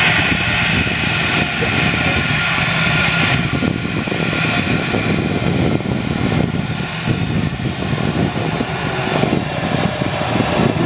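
Jet engines of an Airbus A319 airliner running as it rolls down the runway after landing: a steady rumble and whine, with the higher whine dropping away about three seconds in.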